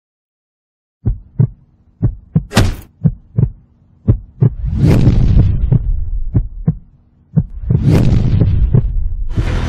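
Dubbed-in fight sound effects: a quick run of about a dozen sharp punch and kick hits, starting about a second in over a low steady hum, with two longer rushing swells about five and eight seconds in. Music comes in near the end.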